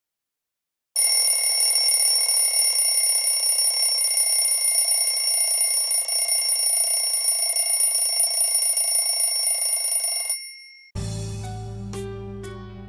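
A wake-up alarm ringing steadily, starting about a second in and cutting off suddenly after about ten seconds. Guitar music starts just after.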